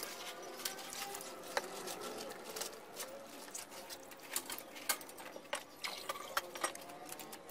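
Sped-up splashing and many sharp clicks from wading in shallow water and working a dip net, with faint wavering chatter underneath.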